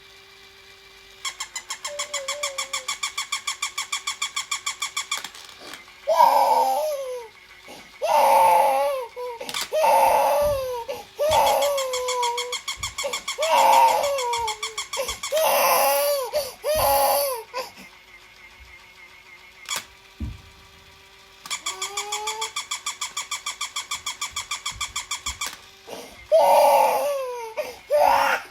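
A battery-powered toy dog makes a fast, even pulsing noise for about four seconds, twice. After each run a baby of about six months breaks into loud crying, in a string of wails that each fall in pitch: the baby is frightened by the toy's barking.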